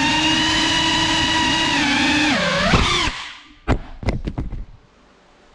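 GEPRC CineLog35 cinewhoop FPV drone's brushless motors and propellers whining steadily at high pitch, dipping and then surging briefly before cutting off about three seconds in. Several sharp knocks follow as the drone crashes and tumbles, then only a faint hiss.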